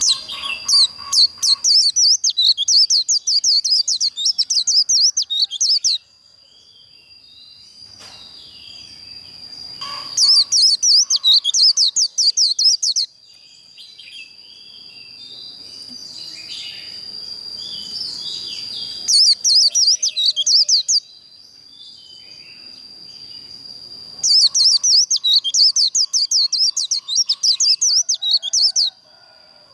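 White-eye singing its rapid, high twittering 'líu' song in four bursts of a few seconds each, with short pauses between. A steady thin high whine runs underneath throughout.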